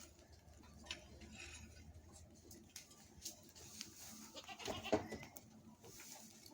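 A goat bleats once, faintly, about four and a half seconds in.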